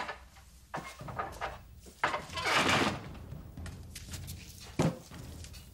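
A few short knocks and a longer rustling noise, like a wooden door and handled paper, over a low steady hum.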